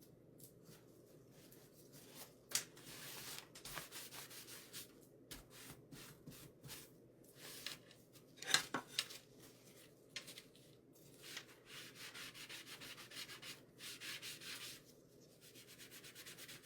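A sponge brush rubbing glaze onto a small wooden piece, in repeated short scrubbing strokes with one sharper scrape about halfway through.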